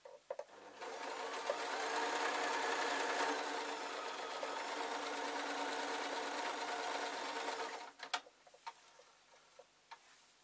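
Singer domestic electric sewing machine stitching steadily for about seven seconds, starting a little under a second in and stopping near the end. A few light clicks follow after it stops.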